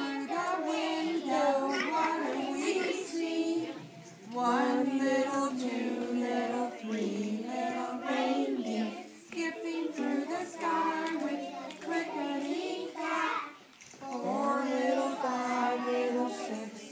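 A group of young children singing a song together in unison, in phrases that pause briefly about four seconds in and again near fourteen seconds in.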